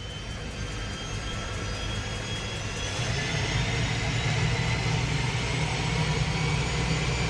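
Engine-like drone that swells steadily louder, with faint high tones slowly rising in pitch: a build-up riser under an animated logo intro.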